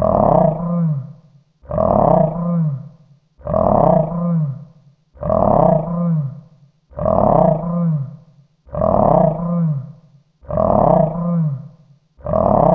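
Mythical beast growl sound effect: a deep roaring growl looped again and again, one about every second and three-quarters. Each growl swells, falls in pitch and dies away before the next begins.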